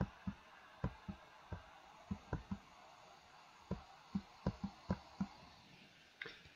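Faint computer keyboard spacebar being tapped over and over, giving about sixteen short thuds in irregular clusters.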